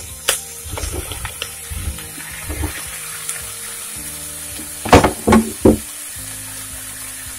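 Chopped cucumber tipped into a kadhai of hot frying masala: sizzling, with clatters as the pieces land in the first few seconds. About five seconds in there are three sharp knocks.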